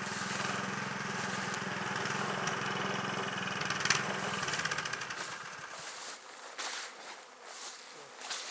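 An engine idling steadily, then shutting off about five seconds in. Bees are buzzing after it stops.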